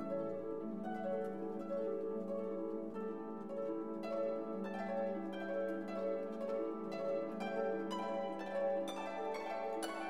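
Background instrumental music of plucked strings, the notes coming more quickly about halfway through.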